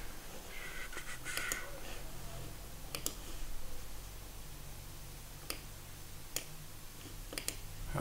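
Computer mouse clicking: about six sharp single clicks at irregular intervals, two of them close together near the end, over a low steady hum.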